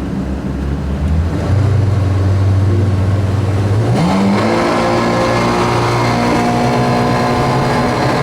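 Twin engines of a 2015 Yamaha 242 Limited S jet boat revving up as the boat accelerates from cruise. The pitch rises in two steps, about a second in and about four seconds in, then holds steady at the higher speed.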